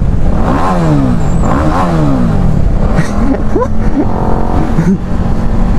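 Single-cylinder motorcycle engine of a TVS Apache RR 310 revved hard twice in quick succession, the pitch climbing and dropping each time, then running on steadily while riding. Revving like this with the clutch slipped risks burning the clutch plate again.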